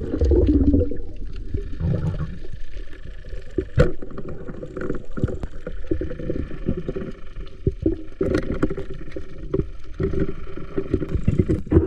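Water sloshing and gurgling close to the microphone, with irregular knocks and clicks throughout.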